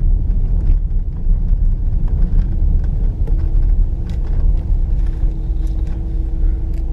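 Dodge Durango R/T with its 5.7-litre HEMI V8 cruising on a snow- and slush-covered road, heard from inside the cabin: a steady low rumble of engine and tyres with scattered light ticks. A steady hum joins about three seconds in.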